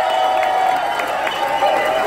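Concert audience cheering and shouting, a steady crowd noise with held shouts and whoops.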